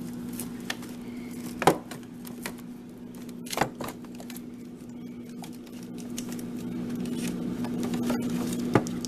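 Frozen food packages being handled and moved about in a freezer: a few sharp knocks and clunks of hard frozen packs, with lighter ticks and rustling between them, over a steady low hum.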